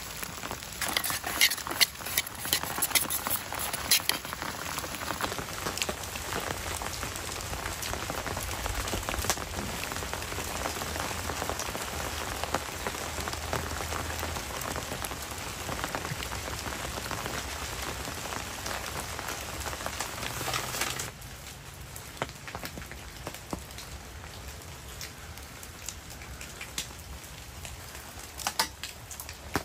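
Steady rain pattering, with sharp separate drops hitting close by, thickest in the first few seconds. About twenty seconds in, the rain abruptly becomes quieter and continues with scattered single drops.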